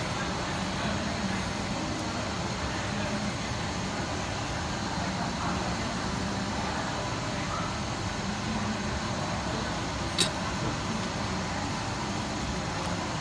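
Steady background noise with a faint low hum, broken once by a sharp click about ten seconds in.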